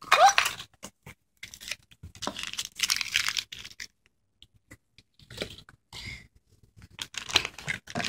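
Rustling and crinkling of a cardboard candy-kit box and plastic candy wrappers being handled, in several short, irregular bursts with quiet gaps between them.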